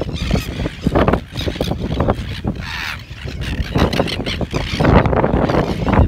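Greater crested terns calling over and over with harsh, rasping calls.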